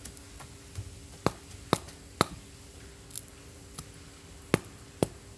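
Large knife chopping and knocking against a charred bamboo tube, stripping the burnt bamboo off rice cooked inside it. About eight sharp, separate strikes at uneven intervals, roughly one every half second to second.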